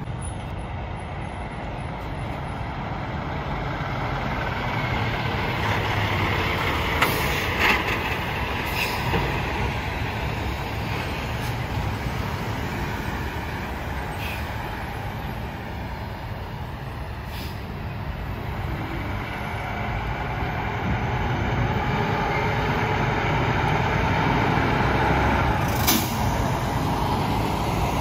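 Diesel semi-trucks pulling through a junction one after another, engines running and tyres rolling, the noise swelling as each one passes. A few sharp clanks from the rigs come through, the loudest near the end.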